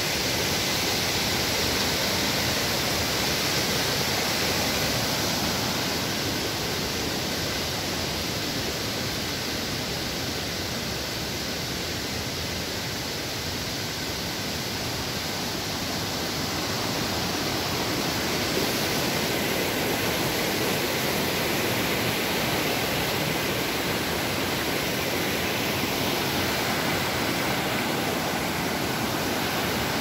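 Mountain stream and small waterfall rushing over rocks: a steady, full water rush that eases slightly in the middle and swells again.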